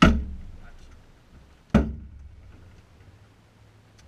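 Two heavy thumps inside the small cabin of a Cessna 150 as a person climbs into the pilot's seat, about two seconds apart, each dying away over most of a second.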